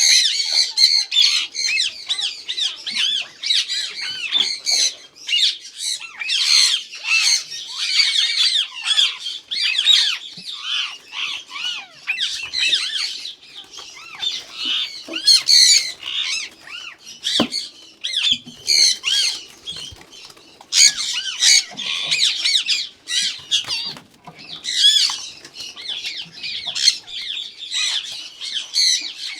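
A flock of Indian ringneck parakeets screeching and squawking in many overlapping high-pitched calls, with a few short knocks, one clear one about two-thirds of the way through.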